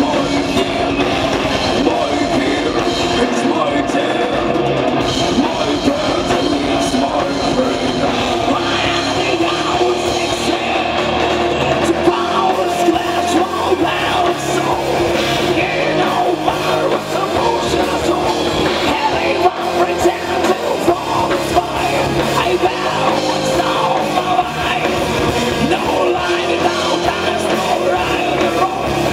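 A rock band playing live: a woman singing into a microphone over electric guitars and drums.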